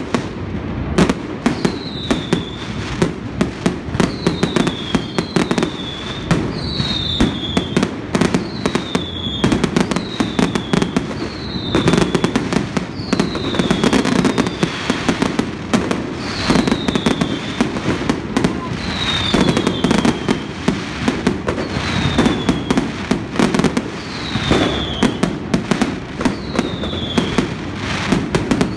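Fireworks display at full intensity: a dense, unbroken run of shell bursts, bangs and crackles. A short, high falling whistle recurs every second or two.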